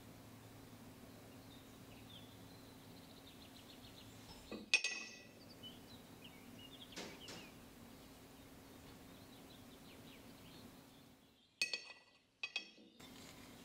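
Faint scraping of a silicone spatula against a small ceramic dish, then sharp clinks of ceramic tableware that ring briefly: one about a third of the way in, a softer one soon after, and two close together near the end as a ceramic spoon is set down on a ceramic plate.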